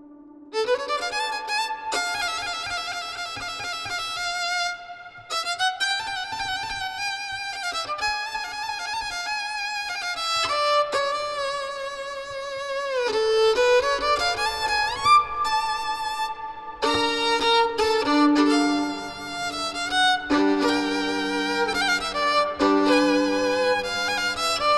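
Violin playing a slow folk-style melody of held, bowed notes, sliding into some of them. Lower sustained notes join underneath about two-thirds of the way through.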